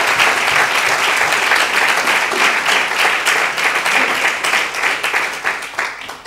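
Applause from a roomful of people, many hands clapping together, dying away near the end.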